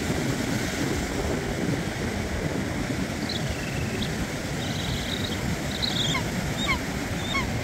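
Sea surf washing steadily on the shore, with wind on the microphone. From about three seconds in, faint high chirps and short falling whistles of a bird sound over it.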